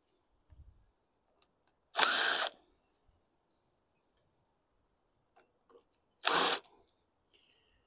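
Handheld power drill-driver run in two short bursts, about two seconds and six seconds in, trying to back off a nut that won't come loose.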